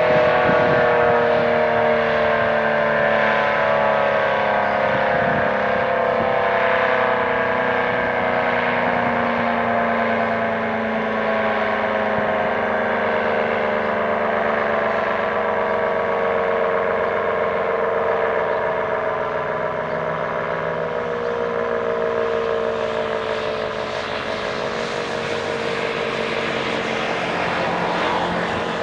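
ACA P-15 outdoor warning siren sounding a loud, steady wail that slowly falls in pitch as it winds down.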